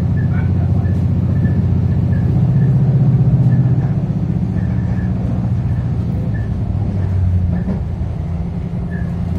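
Adelaide Metro 3000 class diesel railcar running along the line, heard from inside the carriage: a steady low diesel hum with rolling noise. It swells about three seconds in and eases off again, and its note shifts near the end.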